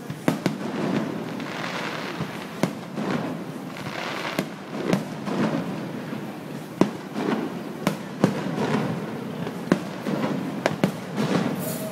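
Fireworks display: about a dozen sharp bangs of shells bursting at irregular intervals, over a continuous rumbling wash of noise between them.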